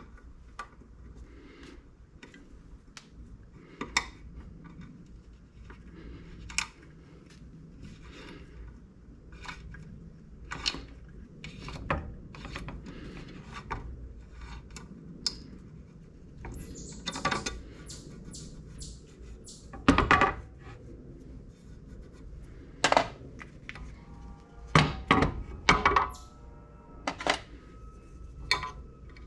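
Metal hand tools clicking, tapping and clinking against each other and the engine's timing cover in irregular knocks, with a quick run of evenly spaced clicks about halfway through, during a helicoil repair of stripped bolt threads.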